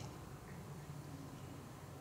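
Faint room tone in a pause between speech, with a low steady hum.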